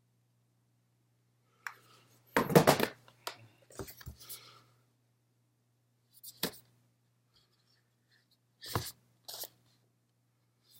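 Cardboard shoebox and its paper packaging being handled: a loud scraping rustle about two and a half seconds in, then smaller rustles and a few short knocks.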